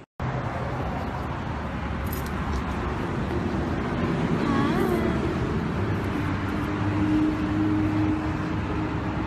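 Steady traffic noise, with a faint rising-and-falling squeal about halfway through.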